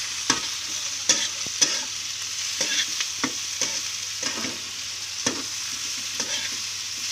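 Crickets frying with onions and kamias in a pan, a steady sizzle. A slotted metal spatula scrapes and clinks against the pan at irregular moments as the mix is stirred.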